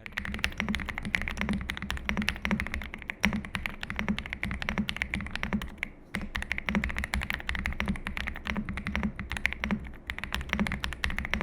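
Fast, continuous typing on an Ajazz AK870 gasket-mounted mechanical keyboard with linear switches and thick PBT double-shot keycaps. The keystrokes sound deep and "thocky", with no stabilizer rattle, and there is a brief lull about halfway through.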